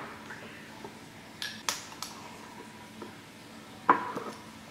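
Metal measuring spoons clinking against each other and on bowls as spices are measured out: a few sharp clinks, the loudest about four seconds in.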